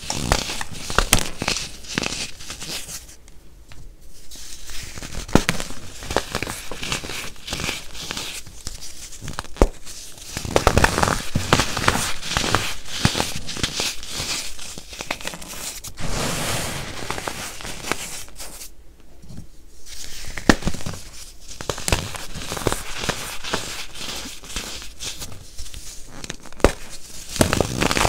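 Hands crushing and crumbling chunks of pressed baking soda: a dense, crisp crunching and crackling with sharp snaps, easing off briefly twice.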